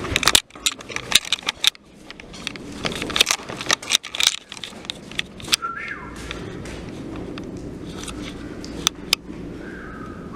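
A run of sharp clicks, knocks and scrapes for the first few seconds, then a short human whistle that rises and then falls, about halfway through.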